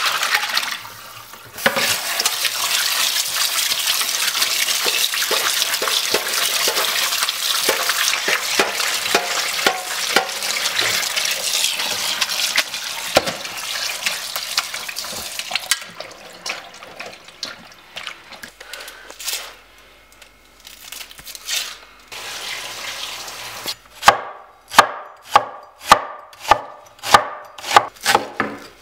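Kitchen tap running into a steel colander in the sink while a hand rinses cut fish pieces. The water stops and, near the end, a knife chops an onion on a wooden cutting board, about two even strokes a second.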